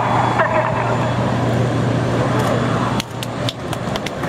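Steady jet noise from a formation of Red Arrows BAE Hawk T1 jets flying a display. About three seconds in the jet noise fades and sharp hand claps from spectators start.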